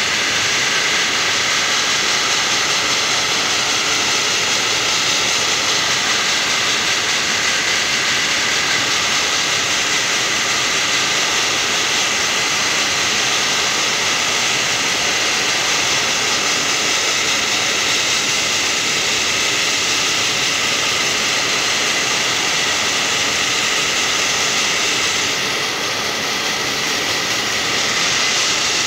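Compressed-air blasting nozzle hissing steadily as it drives lignocellulosic (ground wood) abrasive media onto aluminium aircraft parts. The hiss eases off briefly near the end, then comes back.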